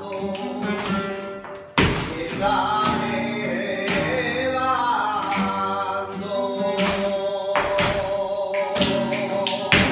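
Live flamenco: a singer holding long, wavering notes over a flamenco guitar, with sharp percussive strikes throughout and a loud one about two seconds in.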